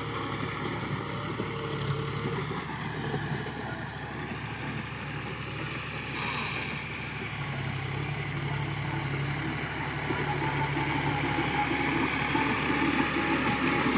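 Tractor engine running steadily while a straw baler works, rolling rice straw into a bale, with a low engine hum throughout that grows a little louder near the end.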